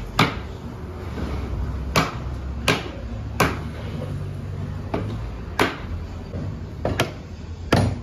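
Hammer striking a wooden table frame about seven times, sharp separate knocks at uneven intervals roughly a second apart, driving its joints together, over a steady low rumble.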